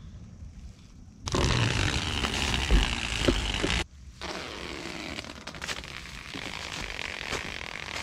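Duct tape crinkling and rustling as a long strip of it is twisted into cordage, over a low rumble with a few knocks. The noise jumps up about a second in and drops off abruptly near the middle.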